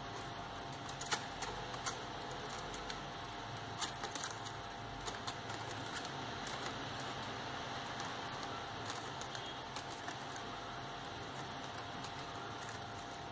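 Small, scattered rustles and crinkles of crepe paper and floral tape being handled, as tape is wound around a wire flower stem. They sit over a steady hiss with a faint hum.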